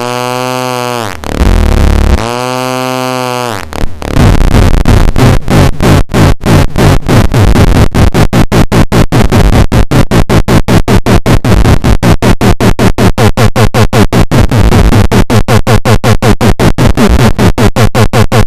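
Homemade optical noise-box theremin, its light-controlled oscillator sounding loudly: for the first few seconds a buzzy tone swoops up and down in pitch. About four seconds in it turns into a harsh, noisy buzz chopped into rapid even pulses, about five or six a second.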